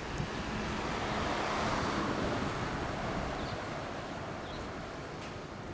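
Kawasaki 350SS air-cooled two-stroke triple idling through Rooney expansion chambers, a steady uneven burble that swells slightly about two seconds in.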